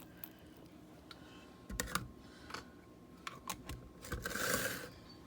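Plastic bottle of Powerade handled with a few light clicks and knocks, then poured briefly, a short splashing hiss near the end.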